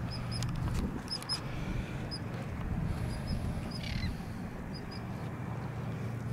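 Birds chirping in short high pairs of notes, again and again, over a low steady hum, with a squawk-like call that falls in pitch about four seconds in.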